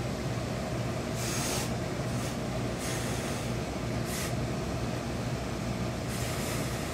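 Steam iron pressing a wool trouser waistband, letting out short hisses of steam four times, over a steady low hum.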